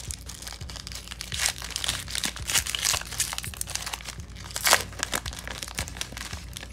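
Foil trading-card pack torn open and crinkled by hand, a dense run of sharp wrapper crackles. The loudest crackles come about one and a half, three and four and a half seconds in.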